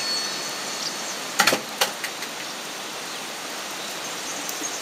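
Steady outdoor background hiss, with two sharp clicks about a second and a half in.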